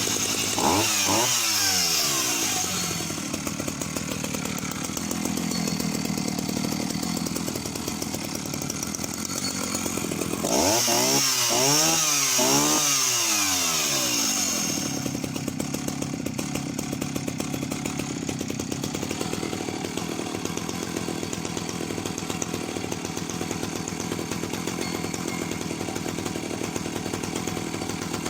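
Vintage Husqvarna L65 65cc two-stroke chainsaw running: revved in quick throttle blips at high speed for the first few seconds and again from about ten to fifteen seconds in, then settling to a steady idle.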